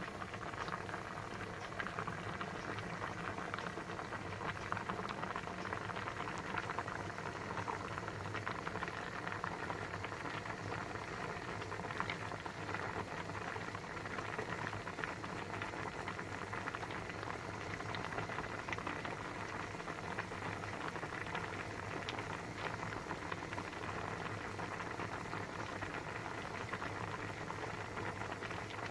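Pasta boiling in a pot of water: a steady, dense bubbling with many small pops.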